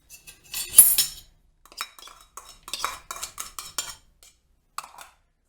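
Spoon and bowls clinking as chopped vegetables are tipped and scraped into a mixing bowl: a loud clatter about a second in, then a run of lighter clinks and one more near the end.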